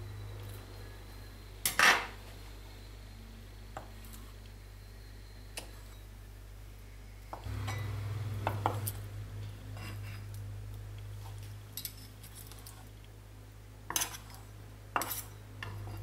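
Metal kitchen utensils clinking and knocking against a plastic cutting board while boiled octopus is handled and cut. A sharp clatter comes about two seconds in, then scattered lighter knocks, with a few more near the end.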